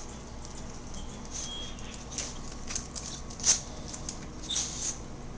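Chihuahua puppy's claws clicking and pattering as it scampers around, with a sharper click about three and a half seconds in and a quick run of clicks near the end.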